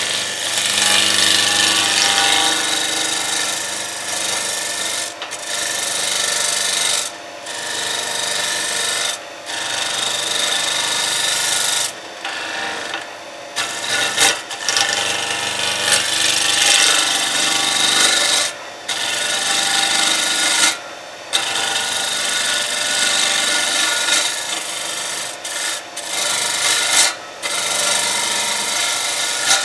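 Turning gouge cutting a spinning golden cypress (Monterey cypress) blank on a wood lathe: a continuous hissing, shaving cut. It breaks off briefly every couple of seconds as the tool comes off the wood and goes back on.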